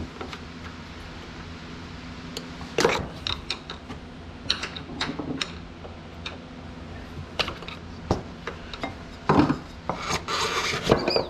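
Scraping, rubbing and irregular clicks and knocks of hand and tool work on a semi cab air bag's bottom mounting clip as it is worked loose, over a steady low hum.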